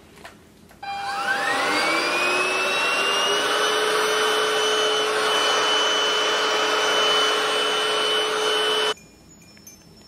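DEIK 2-in-1 cordless vacuum, in hand-vac mode with the crevice tool, switched on about a second in. Its motor whine rises as it spins up, then runs steadily while it sucks dust off ceiling fan blades. It cuts off suddenly near the end when switched off.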